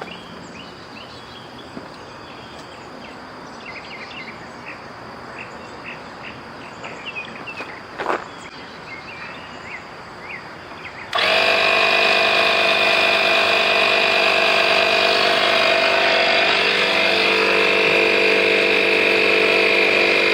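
Faint chirping in the background, then a little past halfway a portable 12V tire-inflator air compressor switches on abruptly and runs steadily and loudly, pumping up a flat car tire.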